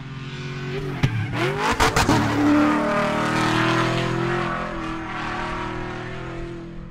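Race car sound effect: an engine drones, then a car passes loudly about a second in with a cluster of sharp cracks, its pitch dropping as it goes away, settling to a steadier fading drone.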